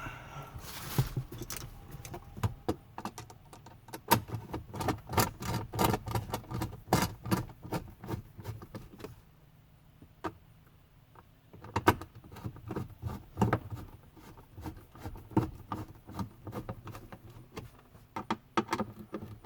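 Hand tools driving trim screws by hand: a run of quick, irregular metallic clicks and knocks, pausing briefly about halfway, then starting again.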